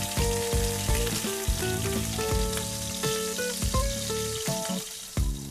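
Duck pieces sizzling in hot oil in a wok as the skin fries golden. Light background music with plucked notes plays along.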